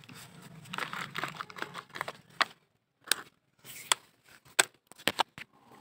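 Plastic toy dump truck pushed through wet mud and shallow water. For the first two seconds or so there is a crackling scrape, then about five sharp, separate clicks.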